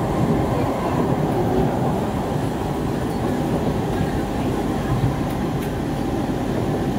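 Interior running noise of a Siemens-built SMRT C651 metro train in motion: a steady rumble of wheels on rail and the car body, heard from inside the passenger car.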